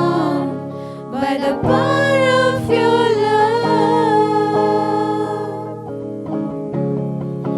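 Worship song: a singing voice over steady chords and plucked guitar. The voice stops about six seconds in, leaving the instruments playing on.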